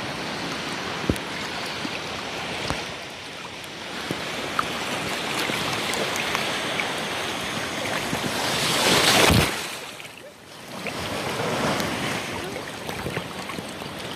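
Shallow ocean surf washing and churning in the shallows, a steady rush of water. A bigger surge swells to its loudest a little past the middle, then falls away sharply before the wash builds again.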